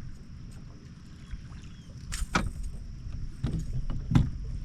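Several sharp knocks and clunks of handling in a small fishing boat, the loudest a little after four seconds, over a low steady rumble.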